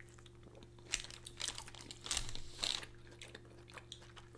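Crinkling of paper or plastic wrapping being handled, in a few short bursts between about one and three seconds in.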